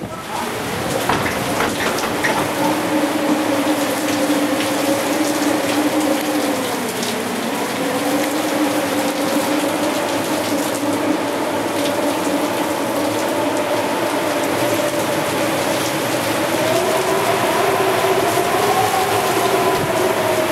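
Typhoon rain and wind, a dense, steady rushing noise, with a steady hum under it whose pitch drifts slightly.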